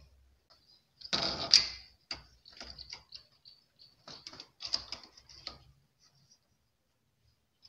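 Metal clicking and rattling from a domestic knitting machine's needle bed as hands work at it while setting up the yarn. There is a loud rattling burst about a second in, then scattered clusters of clicks.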